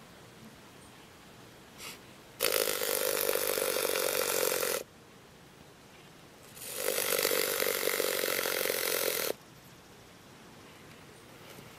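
Texas rat snake vibrating its tail against the wall of a plastic bucket: two buzzing bursts of about two and a half seconds each, a couple of seconds apart. A defensive tail-rattling display.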